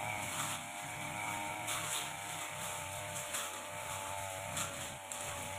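Petrol brush cutter with a long Tanika blade running at cutting speed, its engine note wavering slightly, with repeated short swishes as the blade cuts through undergrowth.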